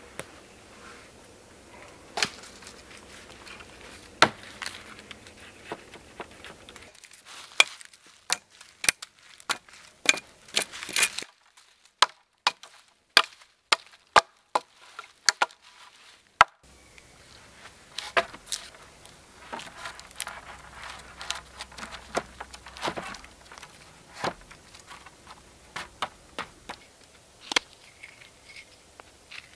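Hatchet chopping into a wooden pole: a run of sharp, irregular blows, loudest and closest together through the middle. Later come lighter, quicker cuts and scrapes of a knife whittling a stick.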